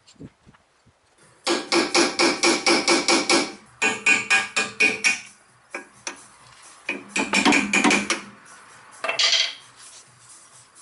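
A small hammer rapidly tapping a screwdriver against a front wheel hub's metal grease cap to knock the cap off, the metal ringing under each blow. There are several runs of quick taps, about six a second.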